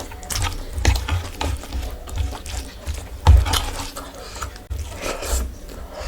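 Close-miked eating sounds: irregular wet chewing, lip smacks and clicks from a mouthful of curry and rice, with one louder smack about three and a half seconds in.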